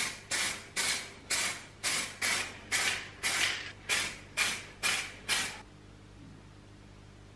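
Aerosol spray-paint can sprayed in short, rapid bursts, about two to three a second, each a quick hiss. The spraying stops about five and a half seconds in, leaving only faint background hiss.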